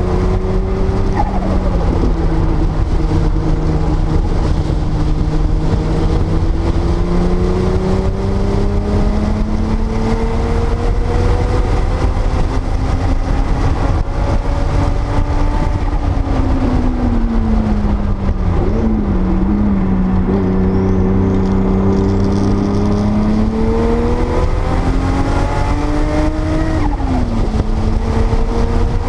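Porsche 930 Turbo's 3.3-litre air-cooled turbocharged flat-six under hard track driving, its pitch climbing slowly and dropping sharply about a second in, again around two-thirds of the way through and near the end. A steady low rumble of noise runs underneath.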